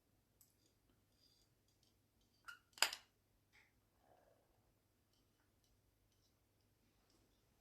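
Faint small clicks and two sharp taps close together about three seconds in, from a screwdriver and small metal parts being handled while the pilot screw is taken out of a Honda GX340 carburetor.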